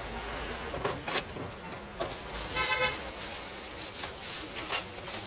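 Handling noise: a plastic bag rustling, with sharp clicks and knocks of parts being moved. A short horn toot lasts about half a second, about two and a half seconds in.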